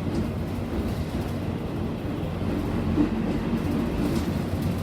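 Interior of a Nishitetsu city bus on the move: the engine runs steadily under road and cabin rumble, with a short knock about three seconds in.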